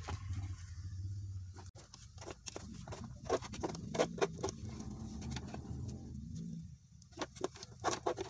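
Wood fire in a traditional tungku stove crackling under a pot of rice, with sharp irregular pops and clicks over a low steady rumble.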